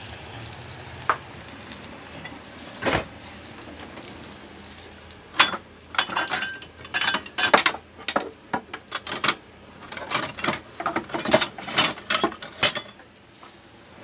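Cookware and utensils being handled at a gas stove and counter, clattering: a couple of single knocks in the first three seconds, then a quick, irregular run of clinks and knocks from about five seconds in until shortly before the end.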